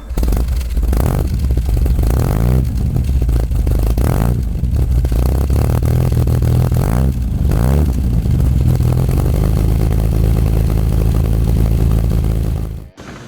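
Austin Healey 3000's straight-six engine running and being revved in several quick blips, each rev rising and falling back. The sound cuts off suddenly near the end.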